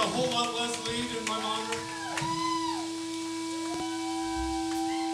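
Live rock band winding down a song: a steady held note with smooth, sliding and arching pitched tones over it, likely from amplified instruments, and no drum beat.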